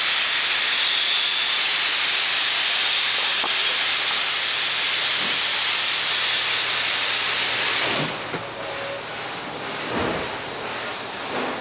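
Steam locomotive venting steam: a loud, steady hiss that cuts off suddenly about eight seconds in.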